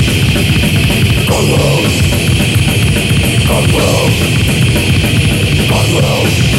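Death metal band playing: fast, dense drumming under heavily distorted electric guitars.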